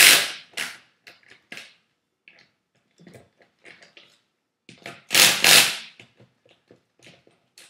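Hand wrench working lug nuts onto a car wheel's studs: scattered metal clicks and rattles, with two louder scraping bursts, one at the start and one about five seconds in.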